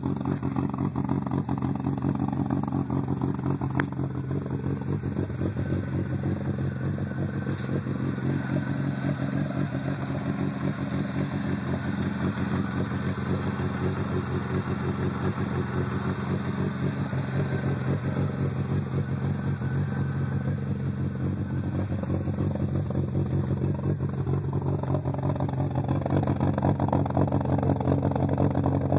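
1988 Yugo's small four-cylinder engine, fitted with an aftermarket camshaft, idling steadily and loudly through its exhaust, a little louder near the end.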